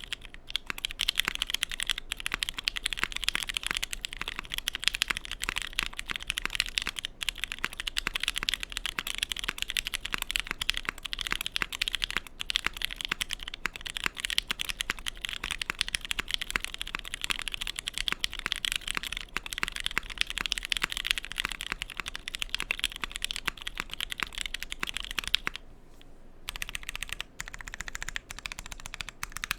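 Continuous typing on a Bakeneko mechanical keyboard with JWK Pewter linear switches, an FR4 half plate, shelf-liner foam and ABS keycaps, with no tape under the PCB. Fast, steady keystrokes with a brief pause about 26 seconds in.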